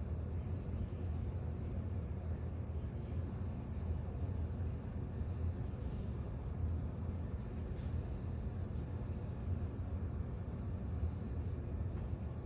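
Steady low rumble of distant city traffic and engines, with no sirens.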